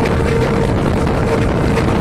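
Diesel train engine running steadily under way, a dense low rumble with a steady whine above it and light clicks scattered through it.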